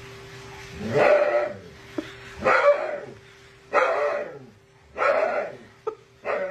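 A dog barking five times, about one bark every second and a half, each bark dropping in pitch.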